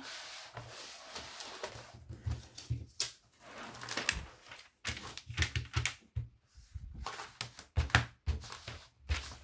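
Clear plastic protective film being peeled up off the sticky glue layer of a diamond painting canvas and pressed back down, crinkling with irregular crackles and taps as the glue's hold is tested.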